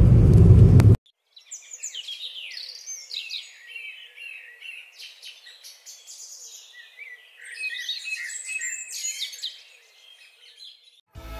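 About a second of steady car cabin road noise, which cuts off abruptly. Then come many birds chirping and singing in quick, varied high chirps and trills, fading out shortly before music begins at the very end.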